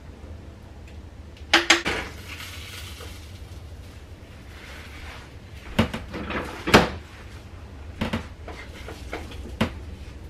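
Frying pan and metal cooking utensils clattering: a quick run of knocks with a brief ring about a second and a half in, a scraping hiss after it, then separate sharp knocks, the loudest a little under seven seconds in.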